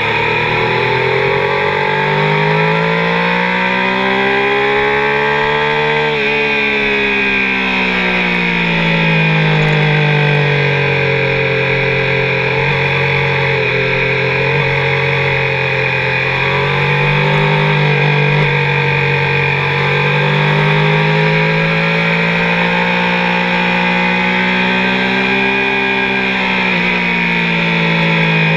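Triumph sport motorcycle engine running hard at high revs, its pitch climbing for the first several seconds, falling back, then rising and easing again through the rest, over steady wind rush.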